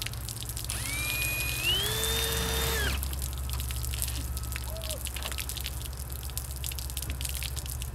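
Cordless drill whirring as it bores into a plastic water container, its pitch rising over about two seconds before it stops. Water streams and drips out of the holes in the container throughout.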